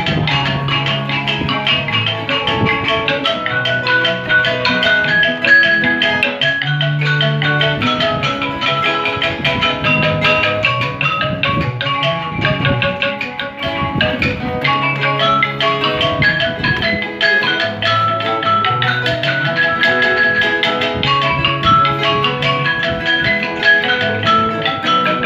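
A traditional Vietnamese band playing, with quick runs of short struck notes over a low bass line.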